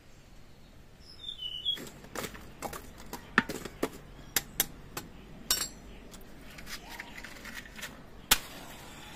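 A dozen or so irregular sharp knocks and clicks, spaced unevenly, the last one among the loudest. A short falling call comes just before them.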